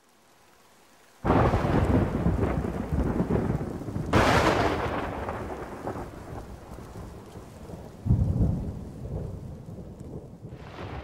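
Thunder: three loud claps, about a second in, about four seconds in and about eight seconds in, each rolling off into a long, fading rumble.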